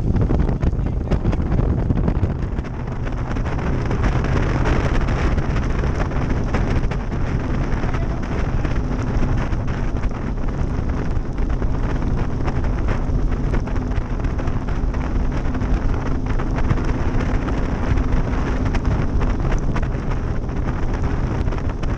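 Bass boat running at speed across open water: heavy wind buffeting the microphone over the steady low hum of the outboard motor.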